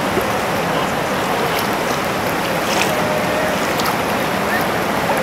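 Whitewater rapids rushing steadily, the river pouring over a drop between boulders in a continuous loud roar of water.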